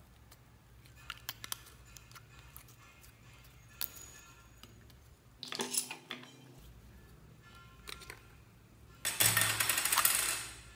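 Slime being pressed and squeezed by hand: scattered small clicks and pops, with a louder squelch about halfway through. Near the end comes a loud noisy stretch of over a second while a plastic slime tub is opened.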